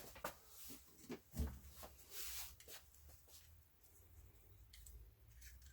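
Faint small clicks and taps of tools and parts being handled on a workbench, with one louder low knock about a second and a half in.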